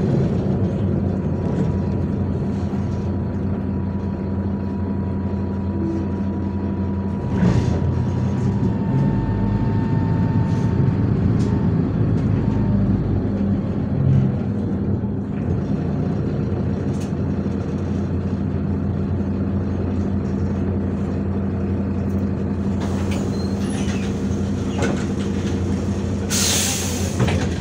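MAZ 103 city bus heard from inside, its diesel engine running steadily. A short hiss of compressed air comes about seven seconds in, and a louder one near the end.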